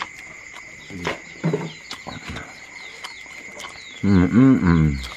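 Insects trilling steadily, with small bird chirps over them. About four seconds in comes a loud drawn-out call lasting about a second, rising and then falling in pitch.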